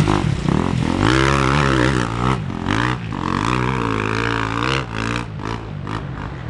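Off-road motorcycle engine revving up and down with the throttle, easing off briefly a few times, then going a little quieter near the end.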